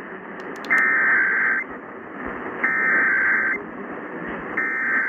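Emergency Alert System SAME header for a Required Monthly Test: three bursts of digital data tones, each just under a second long with about a second between them, heard over AM radio with steady static hiss underneath.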